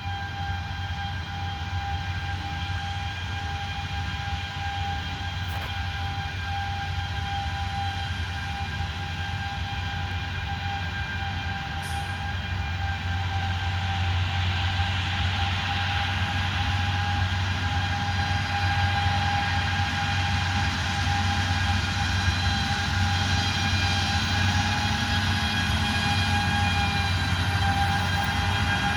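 Farm machinery engine running steadily, a low drone with a steady high whine over it, growing a little louder about halfway through.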